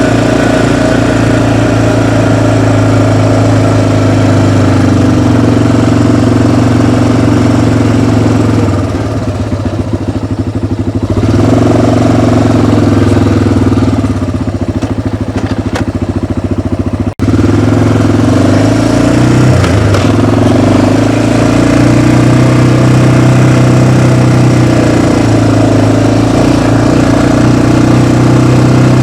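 Engine of a small off-road vehicle running steadily under way, easing off twice around the middle, with a sudden momentary drop-out just after the middle.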